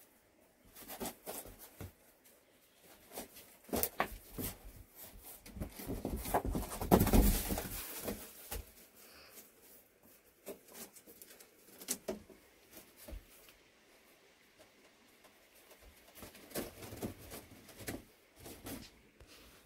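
Kittens scuffling and playing on boards and cloth: scattered taps, scratches and rustles, with a longer, louder rustling stretch around seven seconds in.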